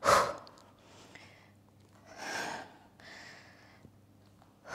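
A woman breathing hard with effort close to a clip-on microphone: a strong breath at the start, two softer breaths in the middle, and another strong breath at the end.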